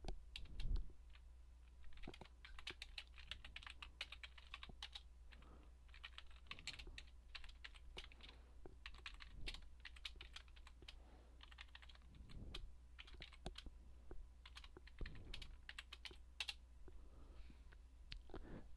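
Faint typing on a computer keyboard: irregular runs of key clicks, over a steady low hum.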